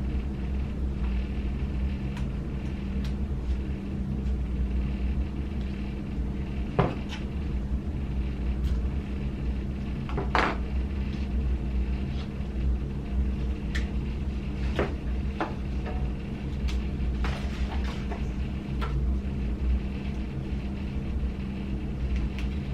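Scattered clicks and knocks from hands working on the PlayStation 5 console, over a steady low hum.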